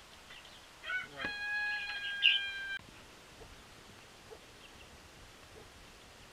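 A rooster crowing once: a short broken opening about a second in, then a long held note that stops abruptly about a second and a half later.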